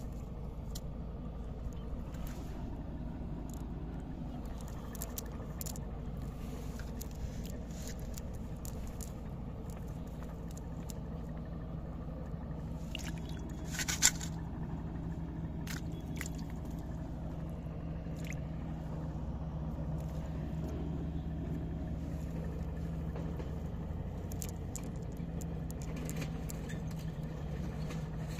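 A motor runs steadily with a low, even hum. Small clicks and rustles come and go over it, and one sharp click about halfway through is the loudest sound.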